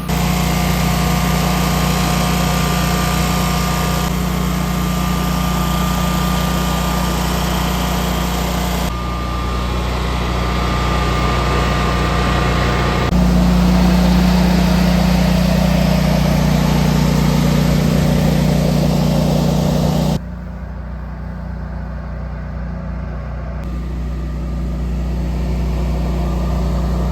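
Honeywell-branded Generac 22 kW Guardian standby generator running steadily on natural gas while carrying the house's load, a constant low engine hum. Its loudness steps up and down abruptly a few times, louder about halfway through and noticeably quieter for a while about three-quarters of the way through.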